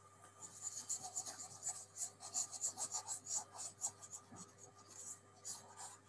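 A stylus rubbing quickly back and forth on a tablet screen, erasing handwriting, as a run of dry scratchy strokes several times a second that stops just before the end.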